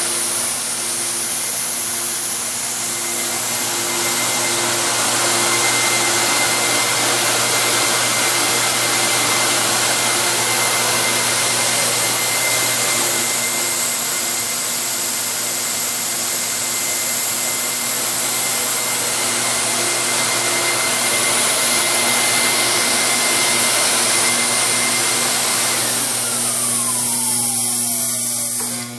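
Vacuum running loud and steady with a high motor whine, over the steady hum of a variable-speed belt grinder running at sharpening speed. Near the end the vacuum is switched off: its whine falls in pitch as the motor winds down, and the noise drops away.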